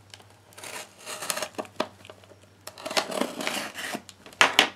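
Packing tape on a cardboard shipping box being cut and torn open: scratchy tearing and crinkling in short bursts, with a few sharp clicks near the end.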